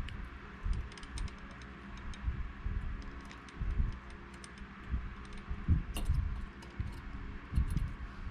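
Irregular light knocks and small metallic clicks of tools and parts as a seal or bearing is worked into a two-stroke engine case half, with a few firmer knocks about three and a half, six and near eight seconds in.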